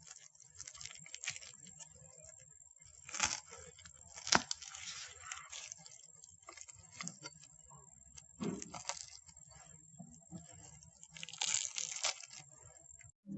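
Scattered clicks, knocks and brief rustling of kitchen food preparation, with one sharp click about four seconds in and a burst of rustling near the end.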